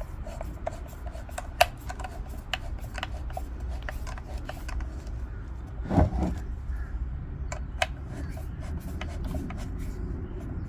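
Screw being driven into the pool pump housing by hand: irregular small clicks and scraping of tool and parts, with one louder knock about six seconds in, over a steady low hum.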